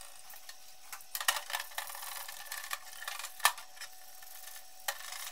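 Metal engine parts being scrubbed and handled in a solvent parts washer: a steady wash of solvent running from the brush, with scattered clicks and knocks of metal on metal, the sharpest about three and a half seconds in.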